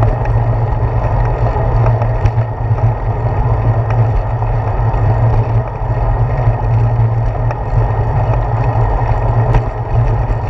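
Steady rumble of wind and road vibration on a handlebar-mounted GoPro Hero 4 as a bicycle rolls along a paved path, with a few faint ticks from bumps.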